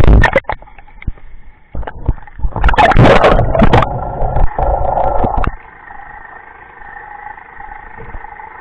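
Water splashing and sloshing against a waterproof camera housing as it bobs at the surface, with loud irregular knocks. About five and a half seconds in it drops under and the sound cuts to a steady, muffled underwater hum with a faint drone.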